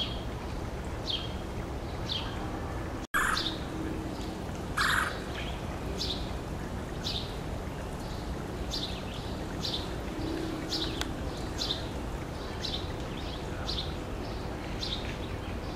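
Male red-bellied woodpecker calling: a steady series of short, falling notes about once a second, with two louder, fuller calls around three and five seconds in, over a steady low background hum.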